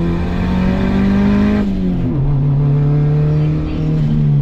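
Turbocharged Honda D15B four-cylinder engine heard from inside the cabin, pulling with rising revs, then dropping sharply in pitch about a second and a half in as the driver upshifts, then pulling again at a lower, steady pitch.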